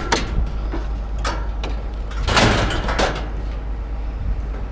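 Scrap metal being unloaded from a pickup bed: a few sharp knocks and a longer scraping slide about two and a half seconds in, over a steady low rumble.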